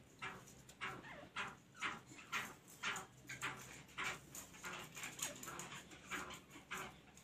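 Caged black francolins giving a rapid series of short calls, about two or three a second.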